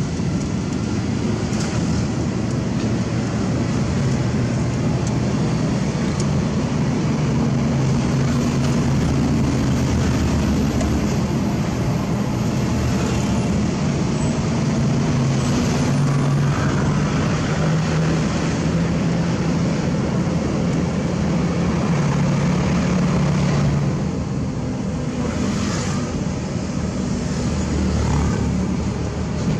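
Heavy truck's diesel engine running under way, heard from inside the cab: a steady drone whose pitch shifts a few times, easing off for a few seconds near the end.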